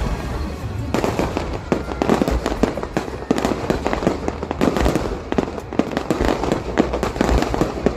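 Fireworks display going off in a rapid barrage: many overlapping bangs and crackles, several a second, with no break.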